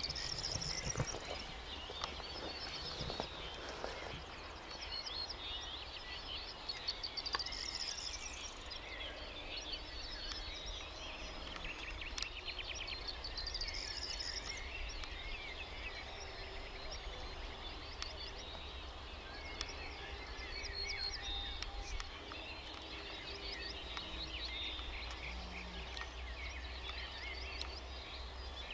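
Several wild birds singing together, with many short chirps and trills overlapping throughout, over a steady low rumble. A few rustles of grass come in the first second.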